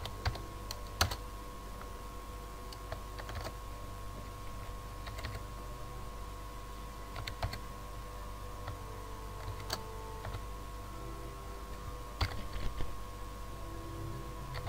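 Computer keyboard being typed on in scattered, irregular keystrokes, some in quick little runs, over a steady faint electrical hum.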